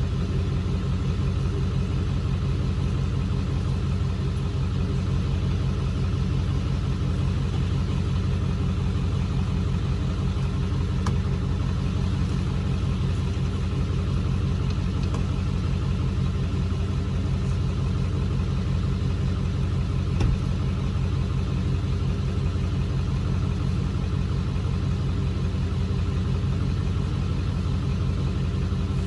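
Car engine running at a steady speed, an even low drone that does not rise or fall, with a brief click about 11 seconds in and another about 20 seconds in.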